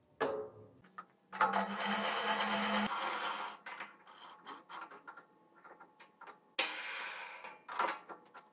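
Metal handling at a lathe's three-jaw chuck: a knock, then a couple of seconds of rattling metal as the chuck is turned with its key, a few small clinks, a second rattle near the end and a sharp click.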